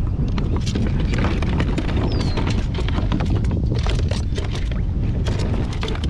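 Wind buffeting the microphone in a steady low rumble, with many short clicks and rattles of handling close by.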